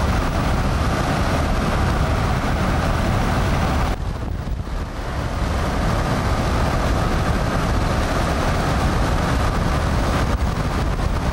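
Steady road and wind noise inside a moving car, with a low rumble of wind buffeting the microphone; the hiss briefly thins about four seconds in.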